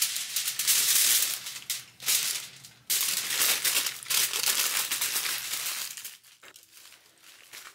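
Aluminium foil crinkling and rustling as it is handled, in two long stretches of about three seconds each, quieter near the end.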